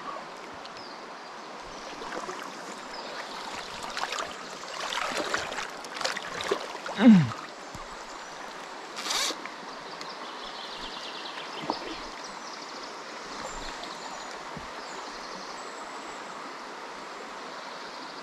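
River water running steadily over a shallow riffle. A few short scraping and rustling noises come in the first half, with a loud brief sound falling in pitch about seven seconds in and a sharp click about nine seconds in.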